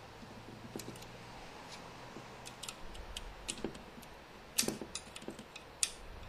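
Faint, scattered small clicks and scrapes of a small screwdriver working the retaining clip on a spade connector of a washing-machine motor's carbon brush, with two sharper clicks in the second half.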